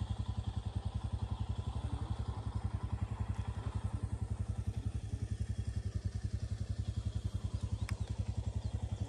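Motorcycle engine running steadily while being ridden, its firing pulses coming in a rapid, even beat that does not change in pace.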